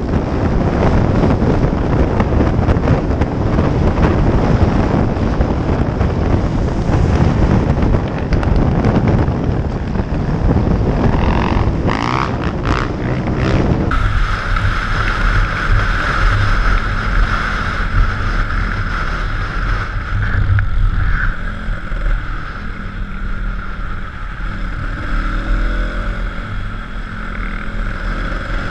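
Motorcycle riding heard from an on-bike camera: small dirt-bike engines running under way, buried at first under heavy wind buffeting on the microphone. About halfway through the sound changes abruptly to a steadier engine rumble with a high whine over it and less wind, with a few rises and falls in engine pitch later on.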